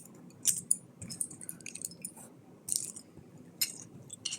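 Plastic LEGO pieces clicking and rattling as they are handled, in a string of short, sharp clicks a second or so apart.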